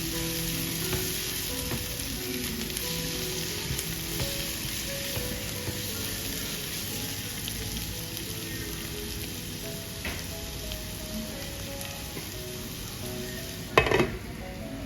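Onions and tomato frying in oil in a pan, a steady sizzle with stirring, under soft background music. A short, loud clatter comes about a second before the end.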